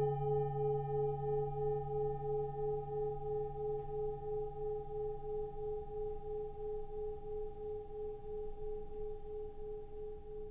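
Singing bowl struck once and ringing on, slowly fading, its tone wavering in a steady slow pulse: the closing chime of a yoga session.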